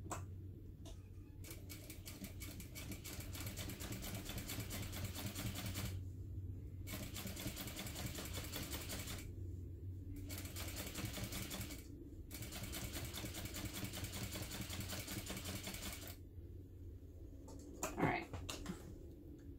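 Sewing machine running fast in four runs of stitching, separated by short pauses, as it topstitches along the edge of a fabric wallet panel at a long stitch length. It stops about 16 seconds in, and a brief knock follows near the end.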